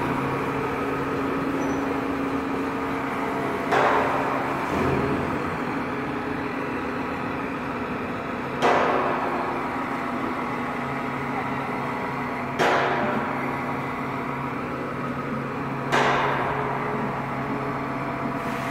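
Truck crane's diesel engine running steadily while it holds a load, with four sharp bangs a few seconds apart, each ringing briefly like struck steel.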